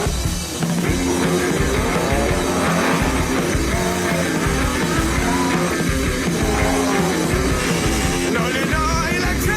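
Loud rock music with drums, distorted guitar and singing.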